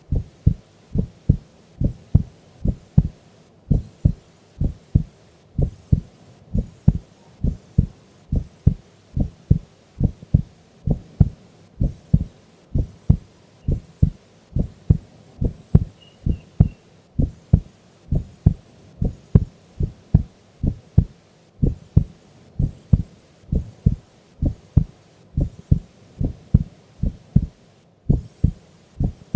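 A sleeping woman's heart beating in an even lub-dub rhythm, a little under one beat a second: a slow, steady resting heartbeat. Each beat is a pair of low, close-up thumps.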